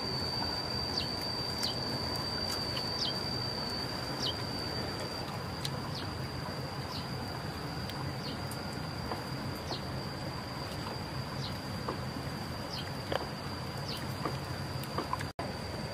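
Forest ambience: a steady, high-pitched insect drone, with a bird's short falling chirp repeated roughly every one to one and a half seconds, over a low, even background noise.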